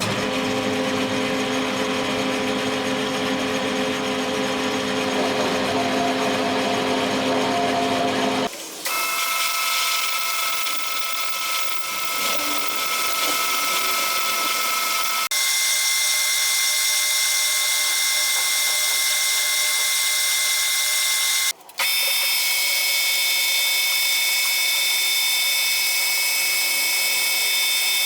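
A metalworking machine tool running steadily with a high whine made of several steady tones, shaping parts for a broken gate-handle shaft. The pitch and tone change abruptly three times, about 9, 15 and 22 seconds in, with a brief drop just before the last change.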